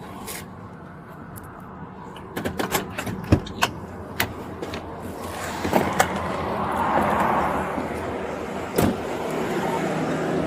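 Steady hum of a running vehicle with a scattered run of clicks and knocks, then a louder wash of noise from about halfway through, with one more knock near the end.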